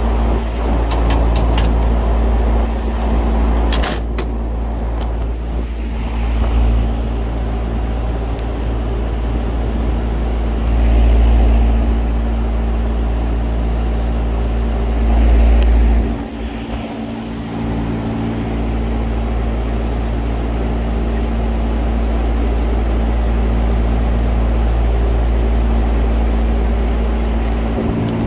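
Steady drone of running refrigeration condenser fans, with a deep rumble and a low electrical hum. A few light metallic clicks of pliers come in the first few seconds, and the low rumble dips briefly a little past halfway.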